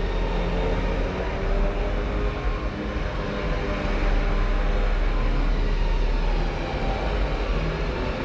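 Foxbody Mustang's engine running steadily at low speed as the car creeps up onto a car trailer, a little louder for a few seconds in the middle.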